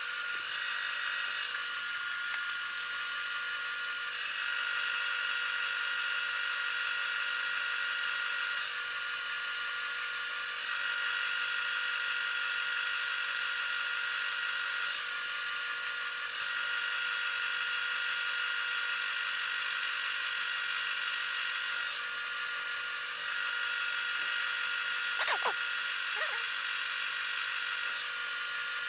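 Small wood lathe running steadily with a motor whine, spinning the pencil blank, with a brief click near the end.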